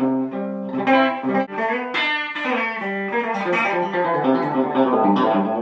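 1964 Ampeg by Burns Wild Dog electric guitar played on its bridge pickup (treble setting): a run of picked notes and chords with a kind of stratty tone.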